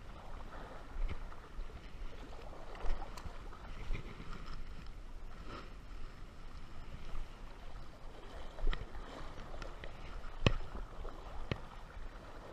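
Shallow river water sloshing and swirling around a wader, with a handful of sharp knocks scattered through it, the loudest about ten and a half seconds in.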